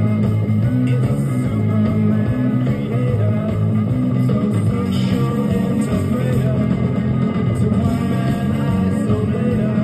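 Rock music with guitar, played back through a SEOM SA-4160 60 W stereo amplifier on test, which is working.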